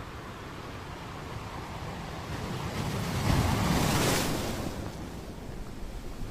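Ocean surf: a steady wash of waves, with one wave swelling up about halfway through and then washing back out.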